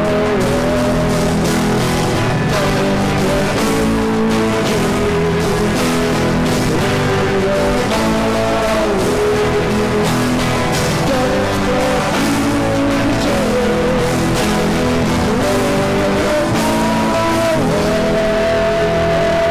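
Live rock band playing loudly: electric guitars, bass guitar and drum kit, with a lead line held and bent in pitch over the steady beat.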